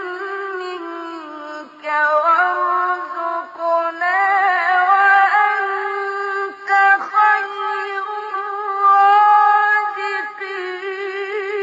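A male Quran reciter's voice in the melodic mujawwad style, drawing out a long, high, wavering melismatic line with a few short breaks.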